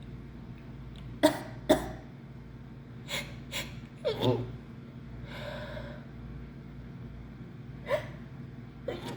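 A woman's sneezing fit: sharp sneezes, mostly in quick pairs, about a second in, around three and four seconds, and again near the end, with a breath drawn between them. The sneezing comes with a runny nose from what she takes to be flu.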